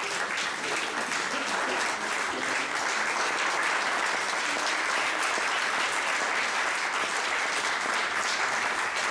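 Audience applauding steadily: many people clapping at once, a dense even patter that holds at a constant level throughout.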